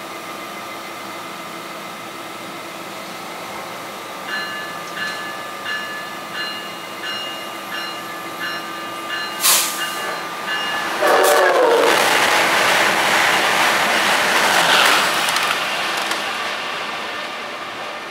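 NJ Transit ALP-46A electric locomotive humming at the platform with its bell ringing about every 0.7 seconds, and a sharp crack just before the bell stops. About eleven seconds in, an Amtrak Acela Express sounds its horn and rushes through the station at speed with a loud roar that slowly fades.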